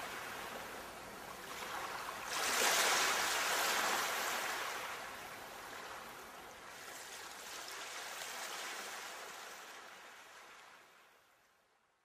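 Sea waves washing in, with one large surge about two and a half seconds in and smaller swells after it, fading away near the end.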